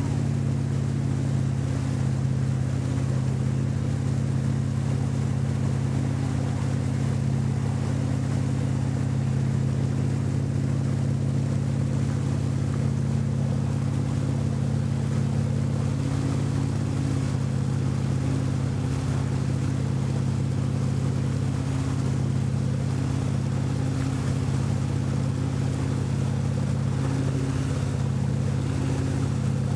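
Towing motorboat's engine running steadily at speed, holding one pitch, with the rush of water from the hull and wake.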